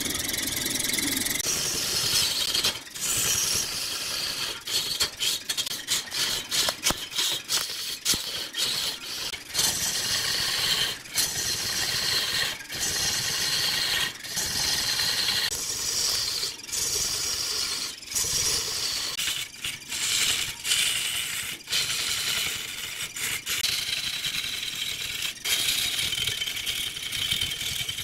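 Turning tool cutting into a block of wood spinning on a lathe: a steady hissing scrape with rattly chatter, broken by many brief gaps.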